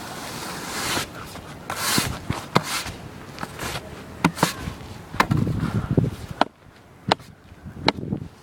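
A broom sweeping grass clippings across asphalt: bristles swishing over the pavement in strokes, with sharp taps and knocks scattered through.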